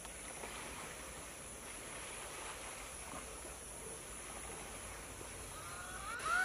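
Wild forest ambience: a steady high-pitched insect drone over a low hiss, with faint rustling. Near the end a bird gives a short call of quick gliding notes.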